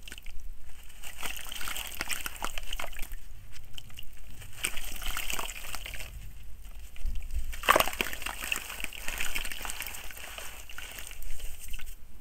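Gritty soil crumbling from hand-squeezed blocks and pattering into a basin of water, with fingers sloshing and stirring the water. There is an irregular crackle of falling grit and one louder splash about eight seconds in.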